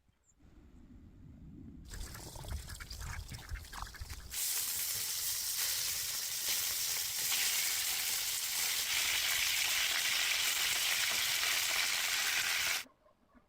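Food frying in hot oil in a pan. A low rumble with a few clicks gives way about four seconds in to a loud, steady sizzle that stops abruptly near the end.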